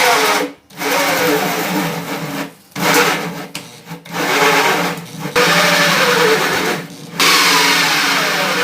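Electric drill boring the hole for the motor shaft. It runs in several bursts with short pauses between them, its pitch sagging and picking up again as it loads.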